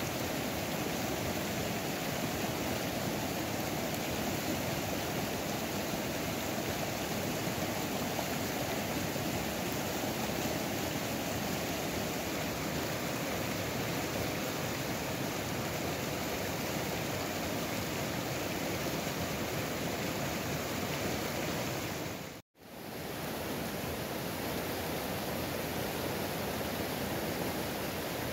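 Mountain stream rushing over rocks: a steady rush of water that drops out for a split second about three quarters of the way through.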